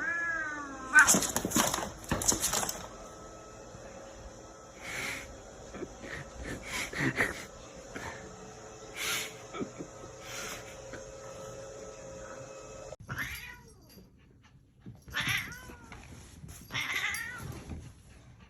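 Domestic cats meowing and yowling: drawn-out calls that fall in pitch, several times, with loud harsh noisy bursts about a second and two and a half seconds in.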